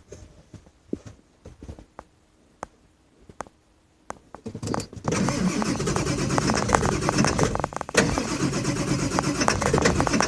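Ford 7.3 L Power Stroke V8 turbo-diesel being started. A few light clicks come first. About four and a half seconds in it cranks and comes up to a loud, steady run, with a brief dip near eight seconds. It is a hard start, which the owner puts down to worn injectors.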